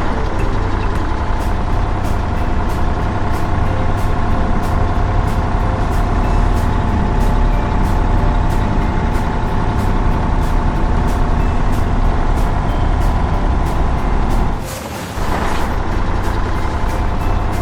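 Heavy truck engine sound, a steady deep rumble with a regular ticking over it. It breaks off briefly about fifteen seconds in.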